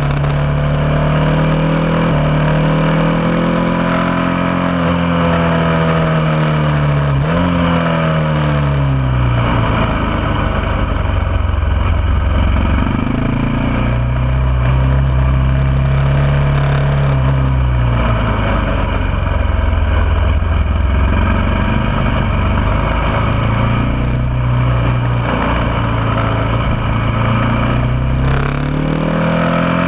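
Motorcycle engine heard onboard while lapping a tight track, its revs rising and falling over and over as it accelerates out of corners and backs off into the next.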